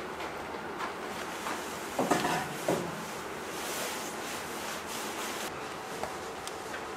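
Wood fire crackling in a cast-iron wood stove, with scattered small pops. About two seconds in, a small metal kettle is set down on the stovetop with a couple of clanks.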